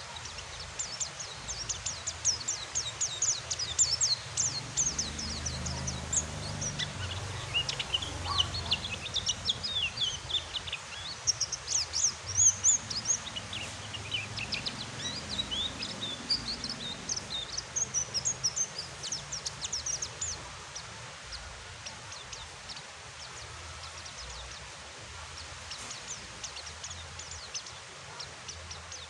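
Steady hiss of rain with white-eyes (pleci) twittering over it in quick, high chirps and short trills. The twittering is busy for the first twenty seconds or so and thins out to occasional chirps near the end.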